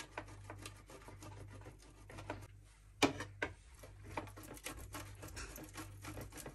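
Peeled hard-boiled egg being grated on a stainless steel box grater, a quick run of short scraping strokes, with one louder knock about three seconds in.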